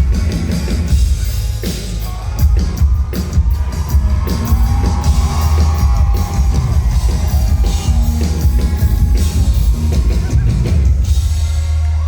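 Live rock band playing loud through a concert PA, with heavy bass and pounding drums and a sustained melody line over the middle of the passage, recorded from within the crowd.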